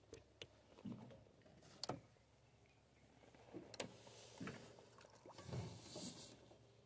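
Quiet handling noises with a few sharp clicks, then a soft splash about five and a half seconds in as a smallmouth bass is released back into the water.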